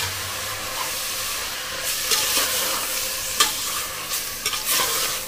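Mutton pieces and ground masala paste sizzling in oil in a stainless steel pressure cooker while a metal spoon stirs them, with a few sharp scrapes and knocks of the spoon against the pot, the strongest about three and a half seconds in.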